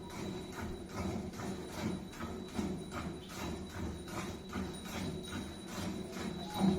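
A Murrah buffalo being milked by hand: jets of milk hissing into the pail in an even rhythm, about two strokes a second.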